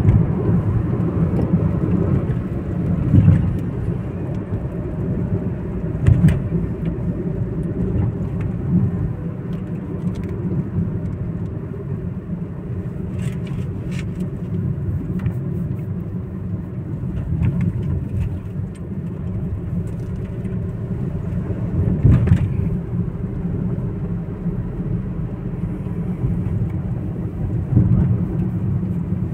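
Steady low road and engine rumble heard inside a car cabin driving at highway speed, with a few short thumps along the way.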